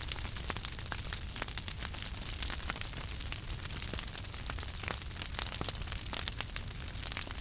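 Fire crackling: a steady soft hiss with many sharp pops and snaps scattered irregularly throughout.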